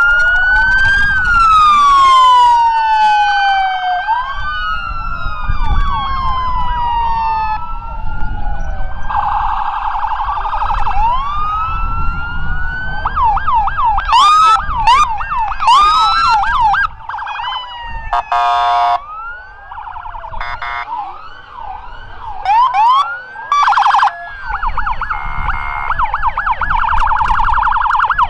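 Several emergency vehicle sirens sounding at once as the vehicles pass. Long rising and falling wails give way to fast yelps and rapid warbles, with short loud blasts mixed in, over a low rumble.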